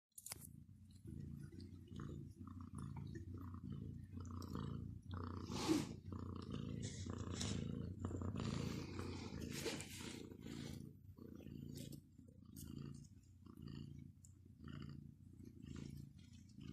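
A cat purring close to the microphone, a low rumble that pulses evenly with each breath in and out, with a few brief rustles or clicks over it.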